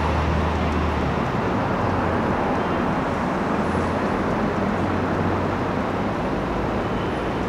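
Steady city traffic noise mixed with the rumble of an elevated subway train approaching around a curve on a steel viaduct. A low droning hum underneath stops about a second in.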